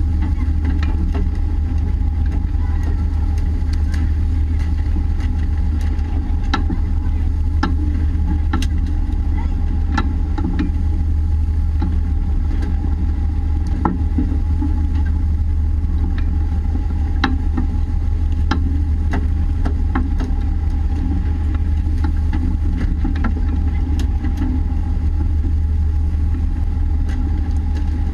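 A fishing boat's engine running steadily with a deep drone and a constant higher hum, with scattered sharp knocks.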